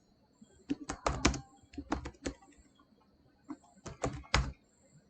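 Computer keyboard being typed on in short bursts of a few keystrokes each: one about a second in, another around two seconds, a single faint stroke, then a last burst around four seconds.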